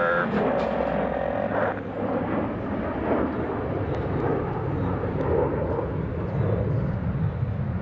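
Jet engines of four F-16 fighters flying in close formation, heard as a steady deep rumble of jet noise that grows stronger a little over a second in.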